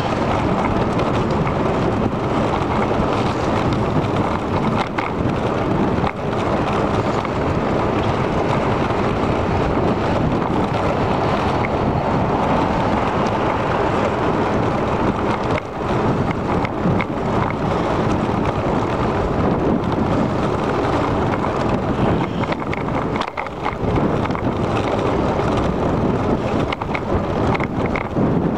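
Wind buffeting the microphone of a camera riding on a moving bicycle, a steady rushing noise with a few brief dips, mixed with tyre and road noise.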